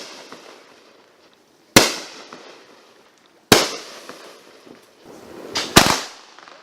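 Consumer aerial fireworks going off: sharp, loud bangs about every one and three-quarter seconds, each echoing away. Near the end two bangs come close together.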